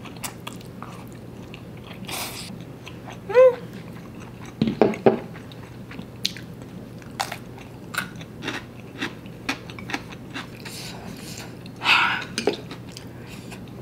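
Close-miked eating of noodles: slurping, wet chewing and lip smacks with many small mouth clicks, a short hum about three seconds in, and a loud breath out near the end as she reacts to the spicy noodles.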